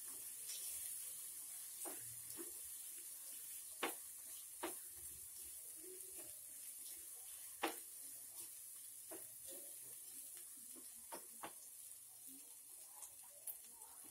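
Chicken pieces and spices frying with a faint steady sizzle in an aluminium kadai while being stirred, the spatula knocking and scraping against the pan in short irregular clicks.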